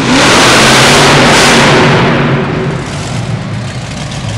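Stomper monster truck's engine at full throttle: a sudden, very loud roar that holds for about two seconds, then fades.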